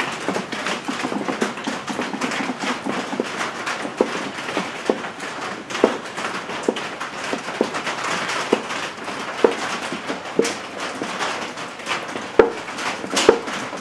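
Regular short clicks, roughly one a second, over a steady hiss, as a Porta Power hand hydraulic pump is worked to press the seized piston out of an antique Witte headless hit-and-miss engine.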